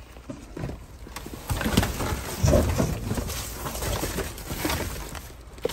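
Hands rummaging through cardboard boxes, plastic bags and bubble wrap in a dumpster: rustling, crinkling and light knocks, busiest in the middle few seconds.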